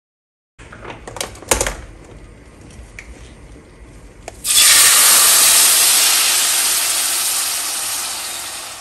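A few metallic clinks as a wire-mesh strainer is set on a pot, then about four and a half seconds in a loud sizzle starts suddenly as blended tomato-and-chile sauce is poured through the strainer into hot oil, slowly dying down.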